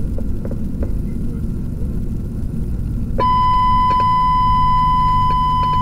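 Low engine and road rumble inside a moving fire engine's cab. About three seconds in, a steady high electronic beep tone starts and holds unchanged, louder than the rumble.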